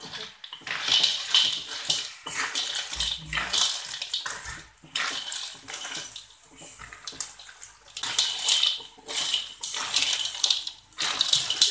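Siput sedut snail shells scraping and clattering against a metal wok as they are stirred with a wooden spatula through sizzling soy sauce, in noisy strokes about every one to two seconds.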